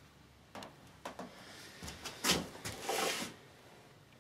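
Faint handling noises from hands working on an opened solar grid inverter's circuit board: a few light clicks and knocks, the strongest a little past two seconds in, then a short rustle or scrape.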